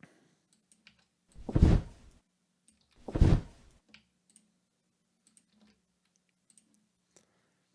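Two deep whooshing wing flaps, about a second and a half apart, each swelling and fading over under a second. They are a designed dragon wing sound built from recordings of a flapped bed sheet, pitched down and saturated to sound heavy and bassy. Faint clicks follow.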